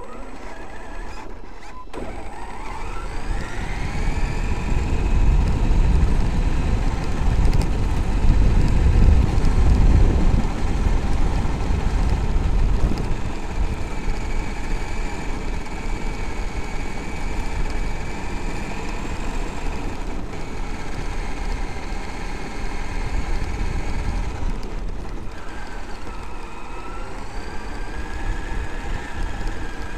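Traxxas X-Maxx RC monster truck's brushless electric motor and drivetrain whining, rising steeply in pitch as it accelerates about two seconds in, then holding a steady high whine. Underneath is a low rumble of its big tyres on a gravel track, heard from a camera mounted on the truck.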